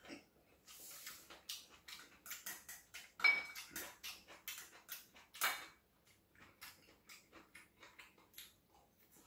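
Metal chopsticks clicking and tapping against ceramic plates and bowls while picking up food. A few sharper taps ring briefly, the loudest about three seconds in and again about five and a half seconds in.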